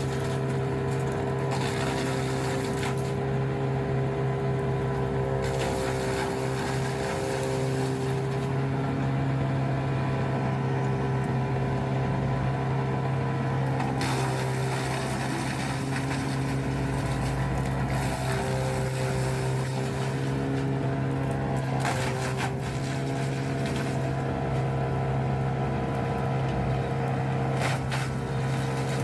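Engine of a Bandit Intimidator 12XP wood chipper, a 120 horsepower Caterpillar diesel, running at a steady speed, with a few brief knocks.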